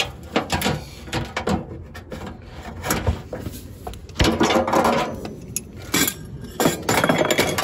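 Cooking gear being handled: a run of small clicks and knocks, with two longer stretches of scraping and rustling, one about four seconds in and one near the end.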